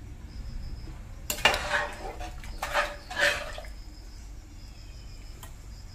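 A spatula stirring rice and water in an aluminium pressure cooker, scraping against the pot in four short strokes between about one and three and a half seconds in.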